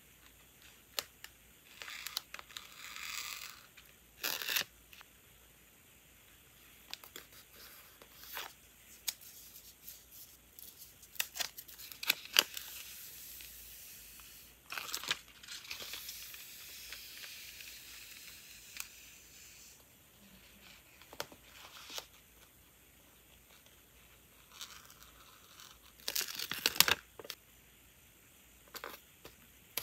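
Washi tape and clear plastic stickers being peeled, crinkled and pressed onto a paper journal page, with light scrapes of a craft knife. Scattered short crackles and rips, with a longer ripping sound near the end.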